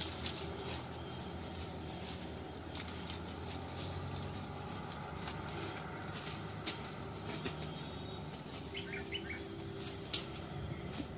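Footsteps and rustling through dry leaf litter and bushes, with many small crackles of twigs and leaves and one sharp crack about ten seconds in. A few short, faint bird chirps come just before it.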